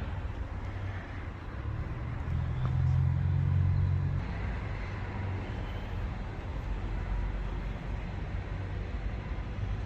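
Road traffic with a motor vehicle's engine running. Its low rumble swells from about two seconds in and eases back after about four seconds.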